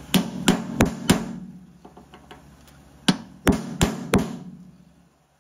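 Hammer striking a hand-held punch against the lathe's metal housing, eight sharp blows in two groups of four: center-punching the spot for a hole to be drilled.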